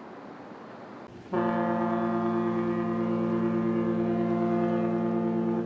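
A ferry's horn sounding one long, steady blast of about four seconds, starting about a second in and cutting off abruptly near the end, after a faint steady hiss.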